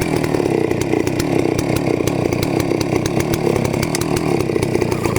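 Chainsaw running steadily at high speed, its engine note holding even.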